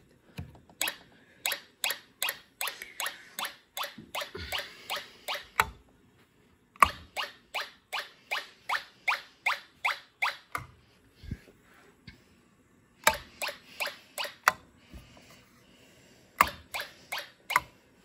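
Snap Circuits fire alarm horn strobe, its tone changed to a siren-like chime, sounding in quick short chirps about three a second. The chirps come in four runs with short gaps between them, as the system goes through a walk test.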